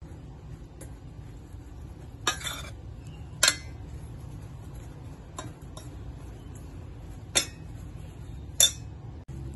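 Metal spoon stirring flour and chopped vegetables in a stainless steel bowl, mixing bakwan fritter batter, with several sharp clinks as the spoon knocks against the bowl.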